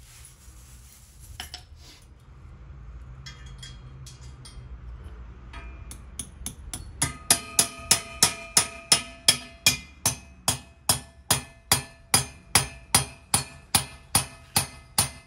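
Hammer driving the anchor fixings of a steel bicycle rack into paving: a few light taps, then from about seven seconds in a fast, even run of ringing metal strikes, two to three a second.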